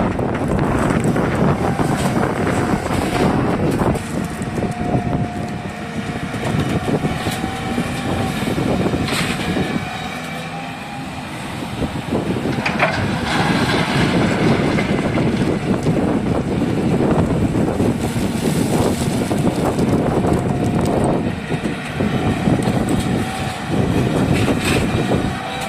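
Hyundai excavator's diesel engine running steadily under load, with a whine that comes and goes and a few sharp metallic clanks. The engine eases off briefly a little before the middle.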